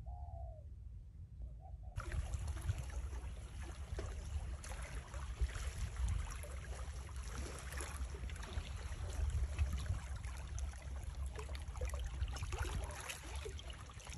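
Small waves lapping and trickling against a rocky shoreline: a steady splashing wash with a low rumble beneath, starting suddenly about two seconds in.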